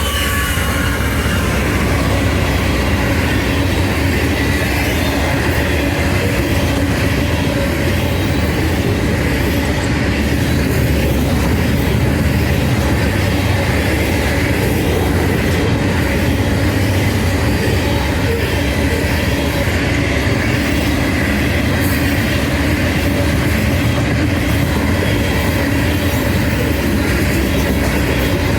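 BNSF Herzog work train passing at speed: a steady, loud rumble and rattle of its wheels on the rails that runs on without a break.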